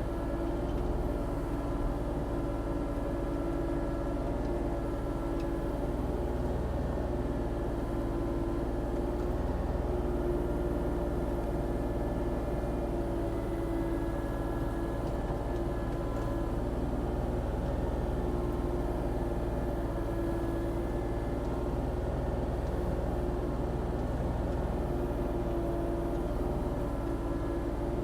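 Volvo ECR40D compact excavator's diesel engine running steadily under working load, with a pitched hydraulic whine that swells and eases a little as it works.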